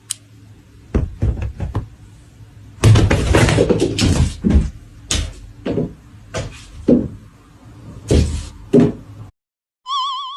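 A run of irregular knocks and bangs, about a dozen over several seconds, some in quick clusters. Near the end, a short warbling electronic tone.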